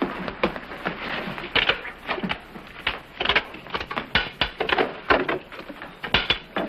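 Footsteps and a busy run of short clicks, knocks and rattles as an old safe is worked open.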